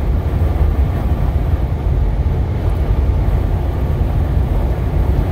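Steady low rumble of road and wind noise from inside a vehicle driving on a highway in high winds.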